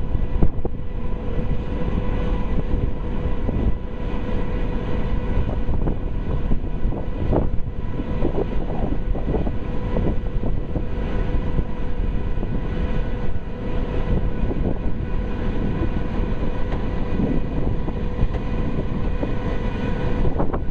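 High-speed catamaran ferry Condor Vitesse under way: its engines give a steady drone with a constant hum, heard from the open deck over a rush of wind and water.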